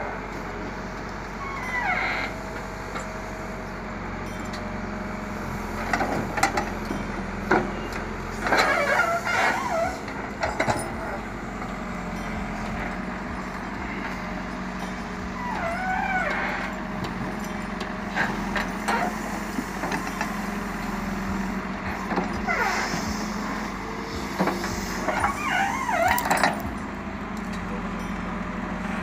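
CAT backhoe loader's diesel engine running steadily under load while the rear bucket digs. Several brief wavering high squeals and scattered knocks come over it.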